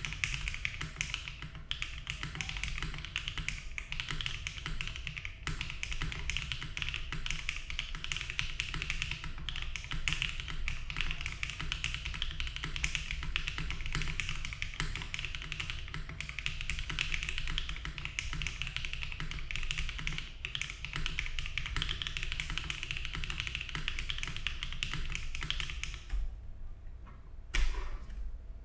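Fast, continuous typing on a Bauer Lite mechanical keyboard with stock HMX Xinhai switches, GMK Dandy keycaps and a polycarbonate plate with no foam, a dense run of key clacks. The typing stops about two seconds before the end, followed by one louder single clack.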